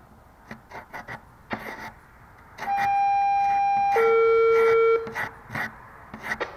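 Short scraping strokes of a putty knife taking excess dried wood filler off a wooden corner joint. There is also a loud, steady squeal for about two seconds around the middle that drops abruptly to a lower pitch halfway through.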